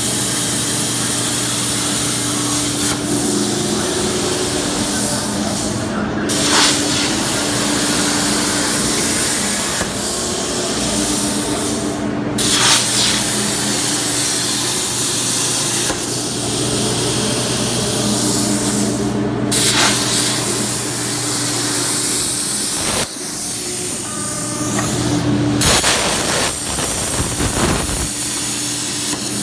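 CNC track cutting torch cutting 3/8-inch plate: a loud, steady hiss with a low hum underneath, briefly dropping out about every six to seven seconds.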